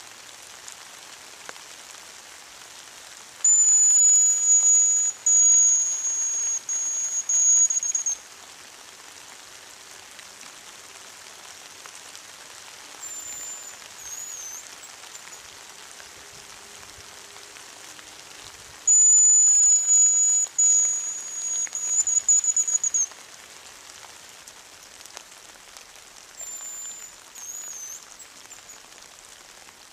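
Hazel grouse decoy whistle blown twice, long thin very high-pitched whistles close by, each answered a few seconds later by a fainter hazel grouse whistle ending in a short trill. A steady hiss of light drizzle runs underneath.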